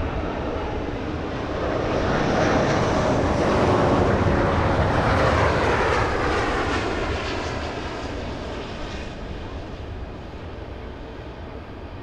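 Airbus A330-900neo's Rolls-Royce Trent 7000 turbofans on landing approach, passing close: the jet noise builds to a peak about four seconds in, then falls in pitch and fades as the airliner goes by.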